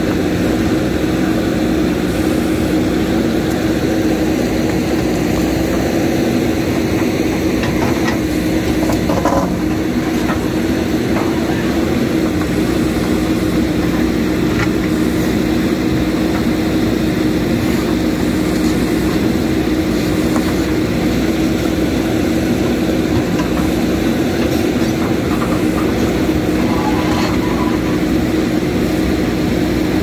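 JCB backhoe loader's diesel engine running steadily under load with a constant hum from the machine, as the backhoe arm digs and drags earth and stones.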